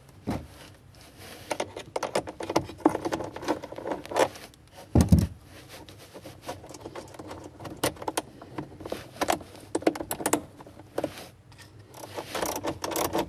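Small metallic clicks, rattles and scrapes of a wiring harness ring terminal and a 10 mm nut being fitted by hand onto a fuse box power stud, with one heavier thump about five seconds in.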